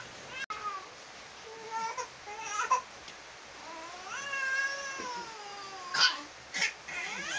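A baby crying in short wails that glide up and down, with one longer drawn-out wail about four seconds in and sharper cries near the end.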